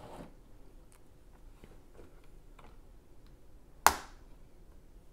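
Faint clicks of LEGO pieces being handled, then one sharp click just before four seconds in as a printed picture tile is pressed onto a LEGO brick wall.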